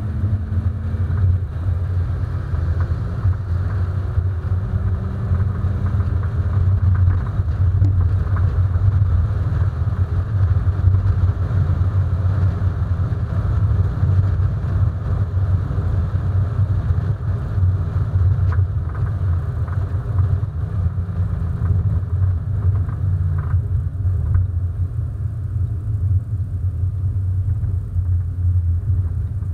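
Hyundai Coupé's 1.6-litre 16-valve four-cylinder engine running steadily at easy parade pace, a constant low drone with no hard revving.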